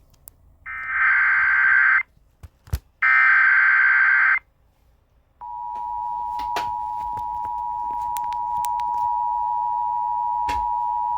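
Emergency Alert System tones: two harsh, buzzy bursts of the digital SAME header data, then about two seconds later the steady two-note EAS attention signal starts and holds, announcing the spoken warning that follows.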